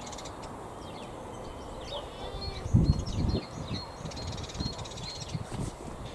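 Birds calling and chirping in the background, with a couple of low thuds about three seconds in.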